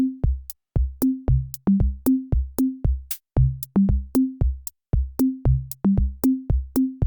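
Electronic background music: a drum-machine beat of short pitched bass thumps, about three a second, stepping between a few notes, each with a sharp click on top.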